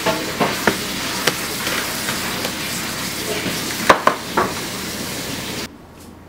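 A kitchen knife cutting an onion on a cutting board, with a handful of sharp knocks as the blade meets the board, over a steady hiss. The hiss cuts off suddenly near the end.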